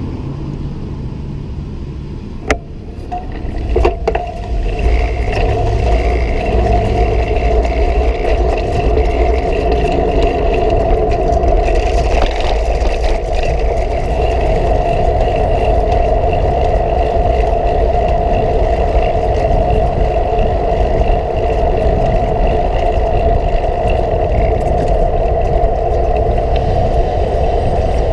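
Riding noise from a bicycle towing a cargo trailer on a road, picked up by a camera mounted on the bike: two sharp clicks as it moves off, then a steady hum over a heavy wind rumble on the microphone that sets in about four seconds in and keeps on while riding.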